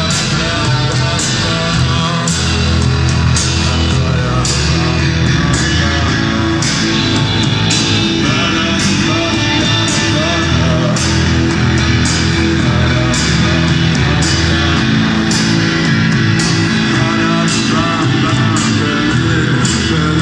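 Live band playing a song: electric guitar and bass over a steady beat of regular percussive hits.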